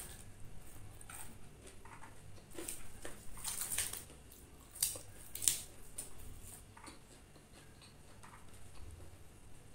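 Close-up chewing of crispy deep-fried chicken with a cornflour-and-oat coating: irregular crisp crunches, the loudest a little after halfway.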